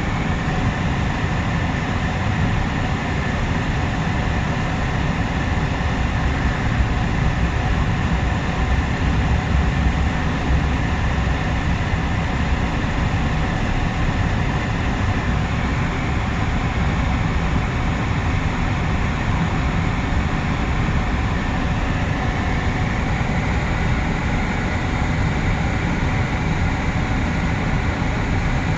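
Freight cars of a long mixed freight train rolling past a grade crossing: a steady, unbroken rumble of wheels on rail.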